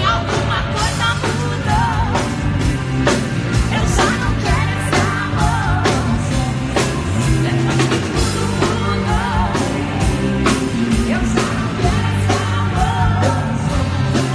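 Pop song with women singing into microphones over a steady drum beat.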